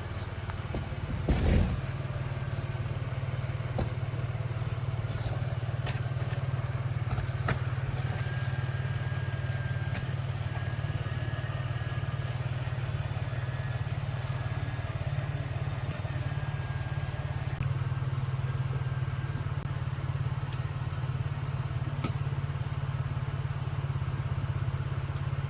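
A vehicle engine running steadily with a low drone, with a couple of sharp knocks about a second and a half in.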